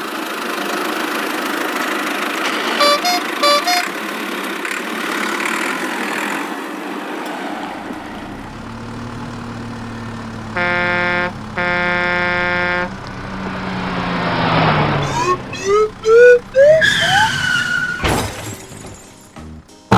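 Cartoon vehicle sound effects. A steady engine-like rumble has two short horn toots early on. Later come two long horn blasts, each about a second, then a string of quick rising whistle-like tones.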